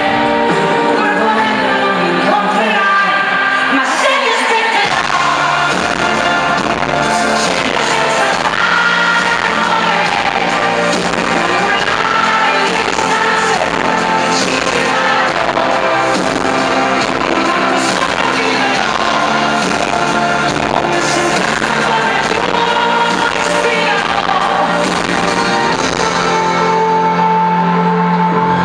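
Italian pop song sung live by a female lead singer with a full band and backing singers, heard from among the audience with the hall's echo. The low end of the band comes in about five seconds in.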